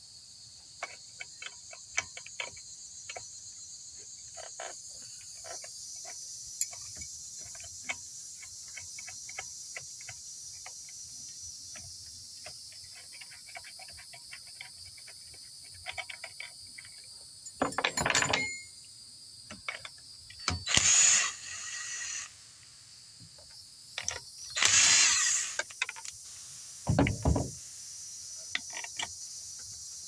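Small wrenches working the throttle linkage and carburetor nuts on a string trimmer: a long run of light metal clicks and ticks, with four louder noises, each under about a second, in the second half. A steady high insect drone runs underneath.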